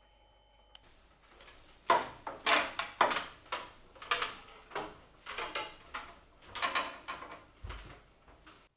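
Footsteps climbing a spiral staircase with open wooden treads: about a dozen knocking footfalls, roughly two a second, starting about two seconds in.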